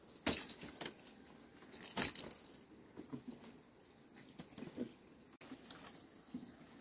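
Light clattering knocks of a plastic basket and cup being handled, the loudest about a quarter-second and two seconds in, over a steady high-pitched insect drone.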